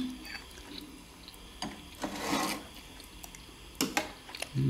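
Metal spoons clinking and scraping on ceramic bowls and a plate during a meal: a few sharp clicks, with a longer scrape about two seconds in. A short low sound comes near the end.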